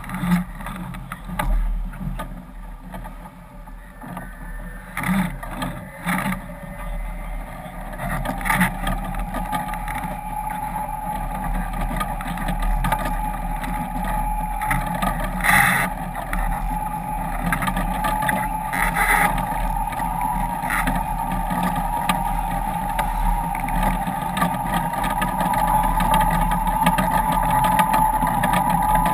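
Water rushing and spray hissing off a foiling sailboat at speed, with a few sharp knocks. About eight seconds in, a steady high whine sets in and grows louder as the run goes on.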